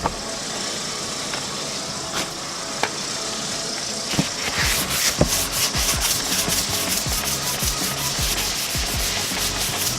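Sandpaper rubbed by hand over the quad's plastic bodywork in quick back-and-forth strokes, about four a second, starting roughly four seconds in after a steady hiss.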